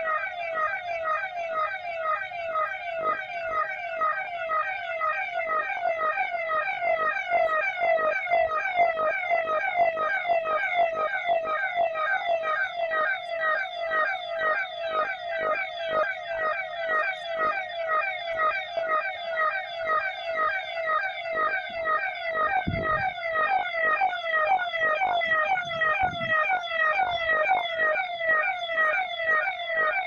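Electronic siren sounding a fast, continuous warble, its pitch sweeping about three times a second. It is sounded as a public COVID-19 awareness signal.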